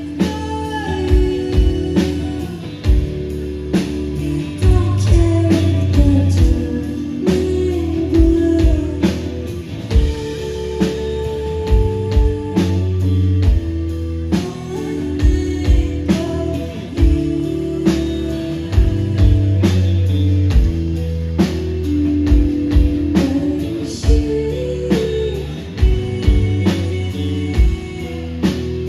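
Indie rock band playing live: electric guitars, bass and drum kit, with a sung vocal line.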